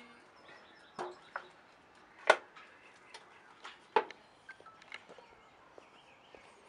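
A few sharp knocks, the loudest about two seconds in and another near four seconds, over low background noise.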